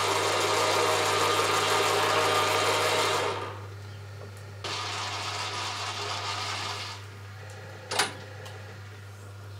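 Myford ML7 lathe running, its oiled change gears meshing noisily; the owner thinks grease would quieten them. The noise drops away about three seconds in. A quieter stretch of running noise follows for about two seconds, then a single sharp click near the end, over a steady low hum.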